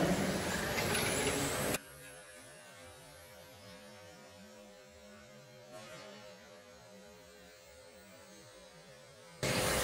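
Electric 1:10 RC touring cars with 17.5T brushless motors racing in a sports hall. About two seconds in, the sound cuts off abruptly, leaving only a faint steady hum, and the racing sound returns just before the end.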